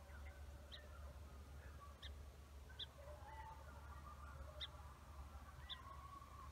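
Faint, distant hunting hounds baying in long wavering calls, with a few short high bird chirps over a low steady rumble.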